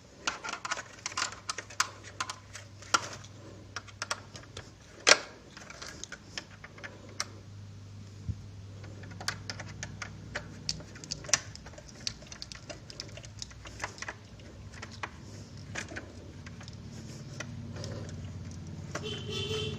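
Scattered sharp clicks and taps of a screwdriver and a plastic speaker casing as the casing screws are put back in, over a low steady hum. The loudest click comes about five seconds in.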